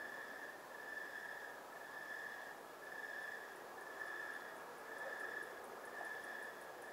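Night insects trilling in a back yard: a faint, even, pitched trill repeating about once a second with short gaps, over a soft hiss, with a faint fast ticking higher up.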